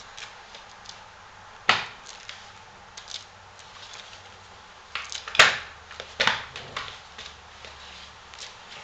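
Knocks and clatters of a flat mop being pushed and bumped about on a laminate floor: one sharp knock about two seconds in, the loudest at about five and a half seconds, another just after six, with lighter taps between.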